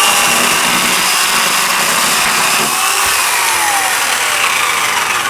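Electric power saw running and cutting through bamboo, a loud steady whine whose pitch sags under the load of the cut.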